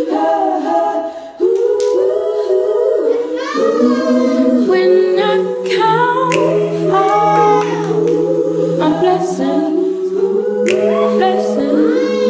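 Music: several layered voices singing long, held harmonies without instruments, with slides between notes and no clear words.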